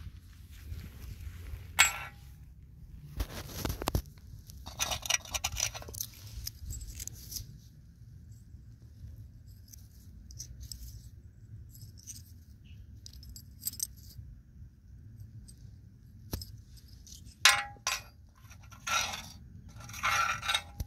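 Small old holed metal coins handled in the fingers: a sharp clink about two seconds in, then bursts of scraping and rubbing as dirt is worked off them, with more scraping near the end.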